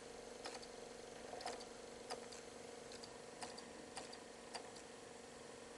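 Supra SDTV-924UT portable DVD player's drive loading a disc: a faint steady hum from the spinning disc, with irregular light clicks and ticks, about eight in five seconds, as the optical pickup mechanism seeks.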